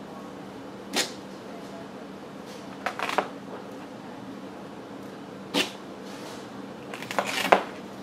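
Short, sharp crackling peels as strips are pulled off a freshly plotter-cut sheet, five times with the last the loudest, over a steady low hum.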